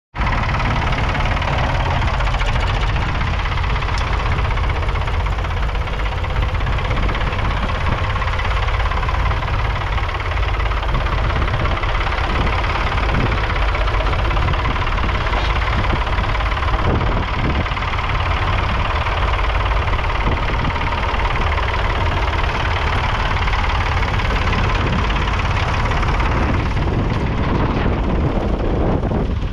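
1966 Ford 4000 3.3-litre three-cylinder diesel tractor engine running steadily.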